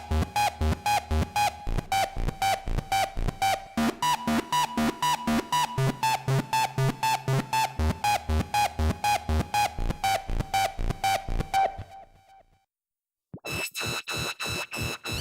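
Elektron Analog Four analog synthesizer playing a sequenced EDM preset: a fast, even run of pitched synth notes, about four a second, over a bass line. The pattern dies away about twelve seconds in, and after a moment of silence a different patch starts up.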